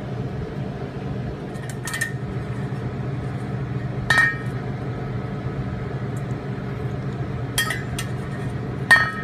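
Metal spoon clinking against a stainless steel mixing bowl while measuring out lemon juice: five or so separate clinks, the loudest about four seconds in, some with a short ring. A steady low hum runs underneath.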